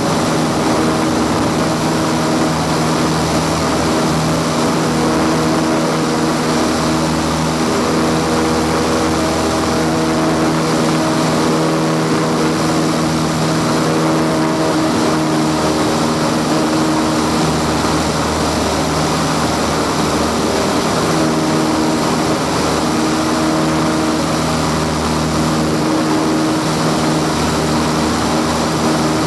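Single-engine light aircraft's piston engine and propeller running steadily at takeoff power through the takeoff roll and climb-out, heard from inside the cockpit.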